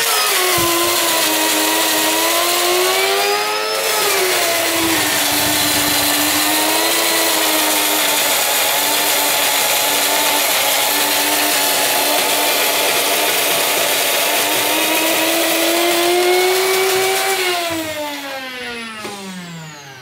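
Krups 223A electric coffee grinder running and grinding coffee beans: a steady motor whine with a slight dip in pitch about four seconds in. Near the end it shuts off and the whine falls in pitch as the motor spins down.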